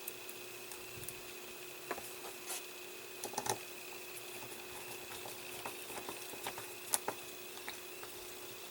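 Small black fixing screws being driven into the plastic halves of a model wheel: faint, scattered clicks and taps of screws and parts, a few a little louder, over a steady faint hum.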